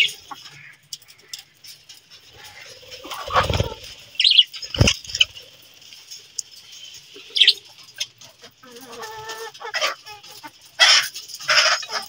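Budgerigars chirping and chattering, with short high calls scattered throughout. There is a thump about three and a half seconds in and a sharp knock near five seconds.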